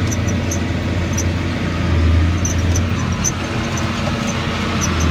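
John Deere 4850 tractor's six-cylinder diesel running steadily under load while pulling a square baler, heard from inside the cab. A low drone swells and fades every few seconds, with faint ticking above it.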